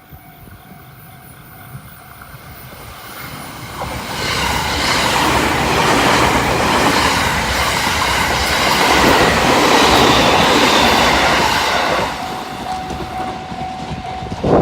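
Level crossing alarm ringing steadily as a local train approaches and runs past, wheels clattering over the rail joints. The train noise builds to its loudest from about four seconds in and drops off sharply about twelve seconds in, leaving the crossing alarm audible again.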